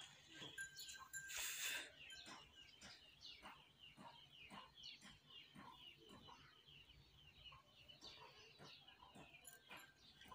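Faint chirping of small birds: many short, quick downward chirps repeating throughout, with a short burst of noise about a second and a half in.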